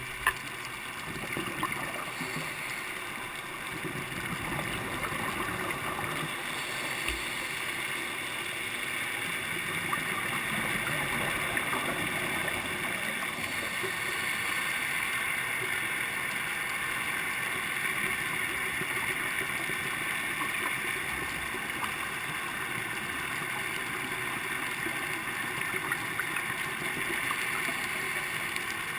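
Underwater ambience over a coral reef, picked up by a camera underwater: a steady hiss with dense fine crackling throughout.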